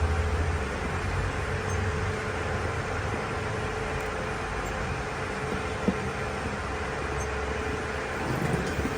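A car engine running steadily with a low rumble and a faint steady hum, with a single sharp click about six seconds in.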